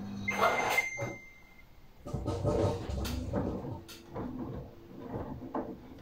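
Samsung AddWash front-loading washing machine: the control panel gives one beep about a second long as a button is pressed, and the steady hum stops. Then water and laundry slosh and tumble in the turning drum.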